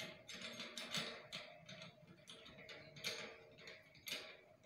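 Faint, irregular light clicks and taps of the satellite dish and its metal mounting bracket being handled as the dish is fitted onto the wall mount.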